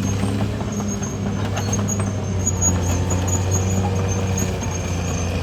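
Caterpillar D6R XL bulldozer's diesel engine running at a steady, unchanging speed.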